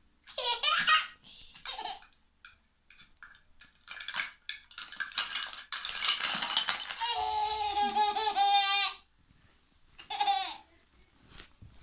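A young girl laughing in short bursts, with a long, steady-pitched held vocal sound about seven to nine seconds in. Light clicks of plastic toy food pieces come in between.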